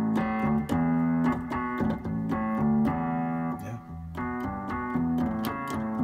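Nord Electro 5D playing its Vox Continental combo-organ model in held chords, with a Rhodes Mark I electric-piano sound split across the lower two octaves for bass. Each chord starts with a short key click, and the chords change about once or twice a second.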